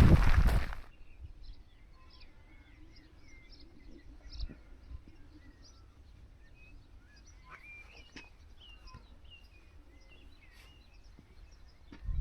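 Small birds chirping, many short calls and little rising and falling notes. A loud rush of noise cuts off sharply about a second in, and there are a few faint knocks.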